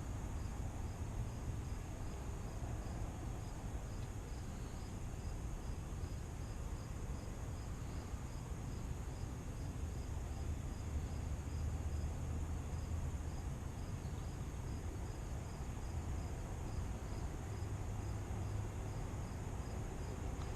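Crickets chirping in a steady, even rhythm, about two chirps a second, over a low rumble of wind on the microphone.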